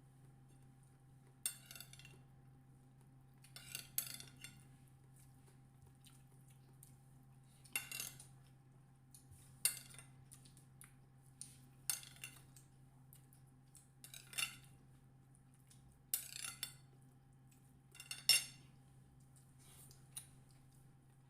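Cutlery clinking and scraping against a plate during a meal, in short strokes every couple of seconds, over a steady low hum.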